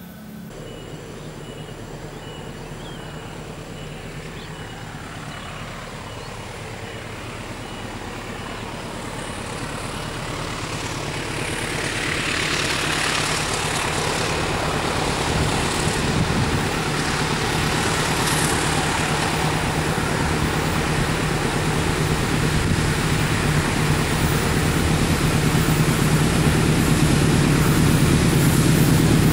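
Diesel-electric locomotive approaching along the track. Its engine drone grows steadily louder as it draws nearer.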